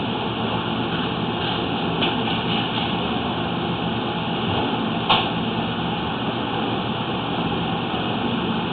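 Steady mechanical running noise, with a single sharp click about five seconds in.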